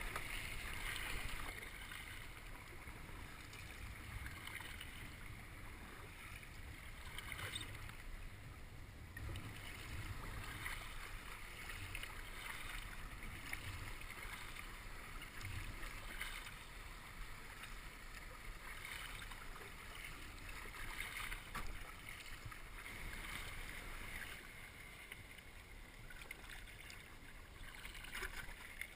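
Water sounds of kayak paddling: a hiss of swishing and splashing from the paddle and along the hull that swells and fades every few seconds, over a steady low rumble.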